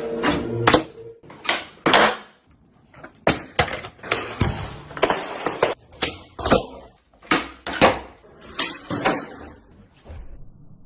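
Skateboards popping, hitting and landing on indoor floors and furniture: a dozen or so irregular sharp clacks and thuds, dying away near the end.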